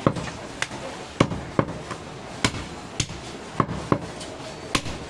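Heavy butcher's knife chopping through mutton and bone onto a wooden log chopping block: about ten sharp chops, roughly two a second, unevenly spaced.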